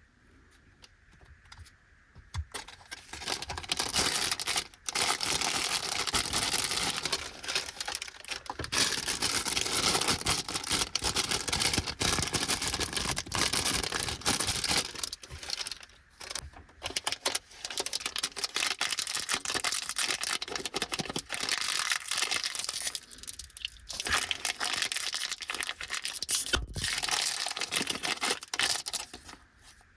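Plastic snack wrappers crinkling and tearing as packets are handled and opened, a busy crackle starting a couple of seconds in and going on with a few short pauses.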